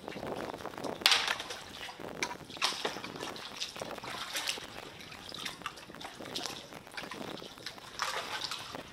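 Water sloshing and dripping around a kayak being paddled, in irregular splashes; the loudest comes about a second in.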